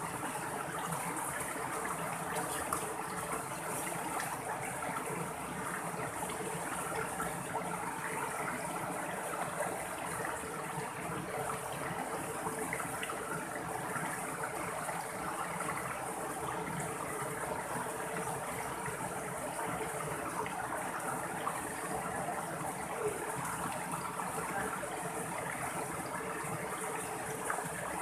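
Shallow mountain stream running over rocks and small cascades: a steady rush and splash of flowing water.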